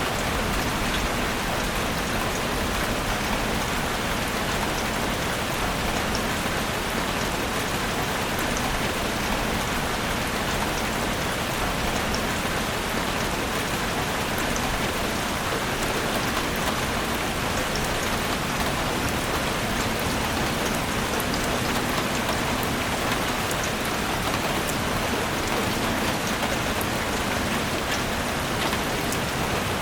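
Steady rain falling in a forest: an even, unbroken hiss of rain with faint sharp drop ticks scattered through it.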